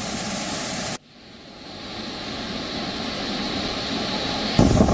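Water rushing through open dam spillway gates, a steady rushing hiss. It cuts out abruptly about a second in, fades back in and builds, then turns suddenly louder and deeper near the end.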